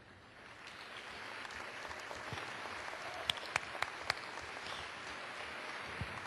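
Audience applauding, swelling up over the first second and then holding steady, with a few sharp clicks standing out about three to four seconds in.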